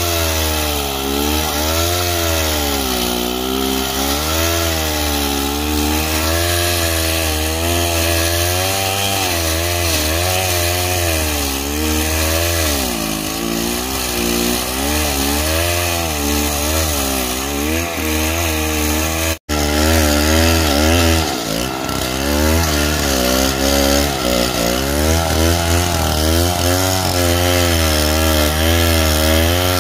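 Stihl chainsaw ripping lengthwise along a log, its engine pitch rising and falling continuously as the cut loads and frees it. The sound cuts out for an instant about two-thirds of the way through, then the sawing carries on.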